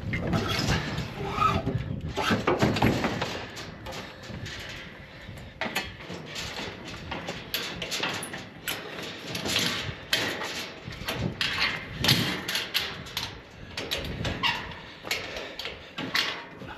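Irregular clanks, rattles and knocks as a bicycle and scrap metal are handled against a steel-mesh cage trailer.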